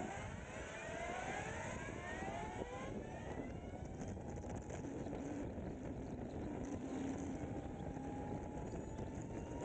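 Energica EsseEsse9 electric motorcycle under way: its electric drive whine rises in pitch over the first few seconds as the bike accelerates, then holds a steady tone, over a continuous noisy rush.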